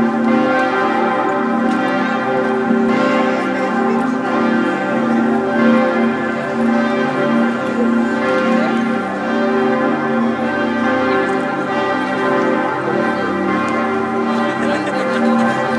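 Serbian Orthodox church bells ringing continuously, several bells overlapping in a dense, unbroken peal.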